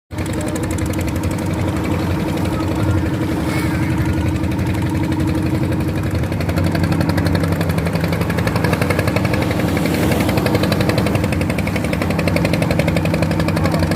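A small sampan's engine running steadily with a fast, even pulsing beat, its note shifting about six and a half seconds in.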